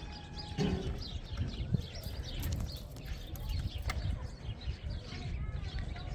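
Birds chirping over and over, with a few sharp knocks, one a little under two seconds in and another about four seconds in.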